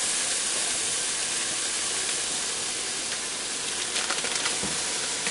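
Ground beef and pork breakfast sausage sizzling steadily as they start to brown in the hot inner pot of an electric pressure cooker on its sauté setting. A few short rustles about four seconds in, as sausage is squeezed from its plastic wrapper.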